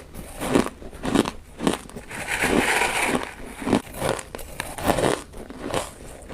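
Popcorn-textured buckwheat ice being bitten and chewed close to the microphone: a run of crisp crunches and cracks, roughly two a second.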